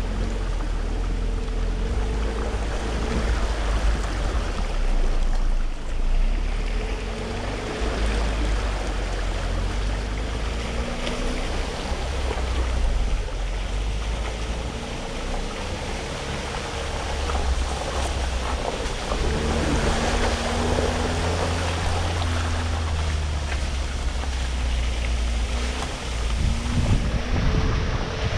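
Off-road vehicle engine running steadily at low speed, under a constant rushing of wind on the microphone.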